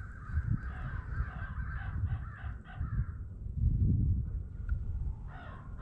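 American crows cawing, a string of short harsh caws that quickens into a rapid run, pauses, then starts again near the end. A low rumble on the microphone, loudest about four seconds in, sits under the calls.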